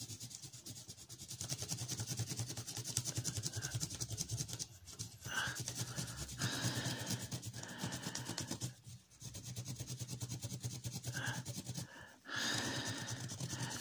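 Coloured pencil shading on paper: quick back-and-forth scratching strokes, in several bouts broken by a few short pauses.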